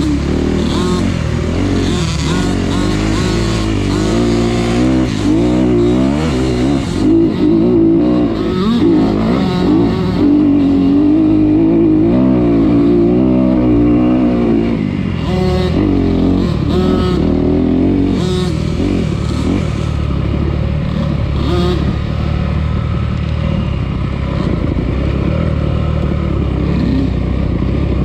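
Off-road vehicle engine running under load along a dirt trail, its pitch rising and falling as the throttle opens and closes.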